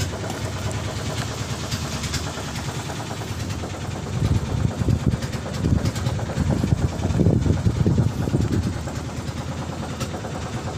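Fishing boat's engine idling steadily, with a louder, uneven rumble for several seconds in the middle.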